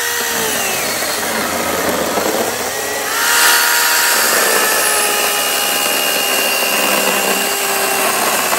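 Ryobi brushless battery chainsaw cutting through a log: a steady electric motor whine whose pitch sags as the chain bites into the wood and picks up again. It is loudest about three seconds in.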